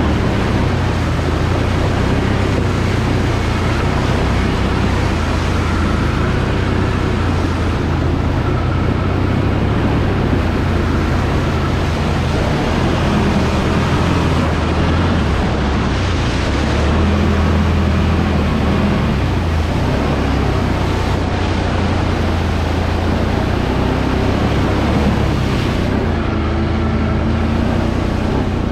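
Can-Am Renegade 1000 ATV's V-twin engine running steadily with a low drone while riding, with a rushing noise over it.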